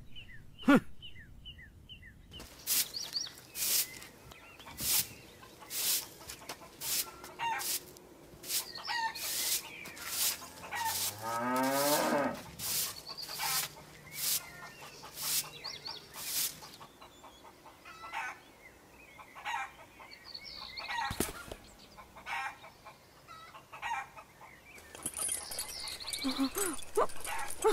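Chickens clucking over and over, and a rooster crowing.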